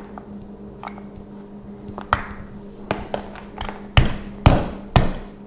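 A new plastic quart bottle of motor oil being opened by hand: a few light clicks and crackles from the cap and seal, then three sharp clicks about half a second apart near the end.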